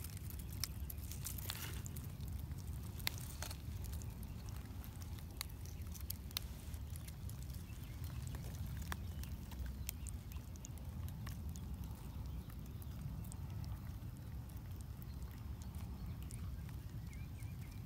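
A steady low outdoor rumble, with scattered sharp clicks and crackles of dry leaf litter and twigs, most of them in the first half. Faint bird chirps come in near the end.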